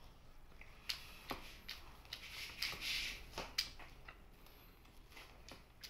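Close-up eating sounds: chewing, with scattered small wet clicks and smacks of mouth and fingers picking at braised pork in a bowl.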